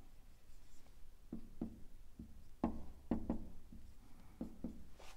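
Dry-erase marker writing on a whiteboard: a faint run of short, irregular taps and strokes as letters are drawn.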